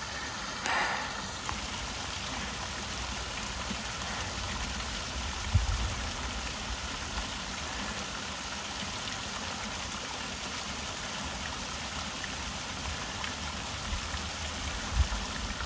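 Small waterfall, a few feet high, splashing into a pool below it: a steady rush of falling water. Two brief low thumps, about five seconds in and near the end.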